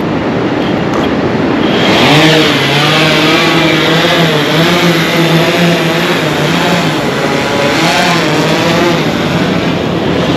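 Quadcopter drone's motors spinning up for take-off about two seconds in, a loud buzzing hum whose pitch wavers as it climbs away towing a fishing line, fading near the end. A steady rush of surf and wind runs underneath.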